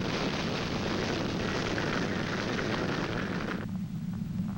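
Loud rushing wind of a tornado. It cuts off abruptly about three and a half seconds in, leaving a low steady rumble.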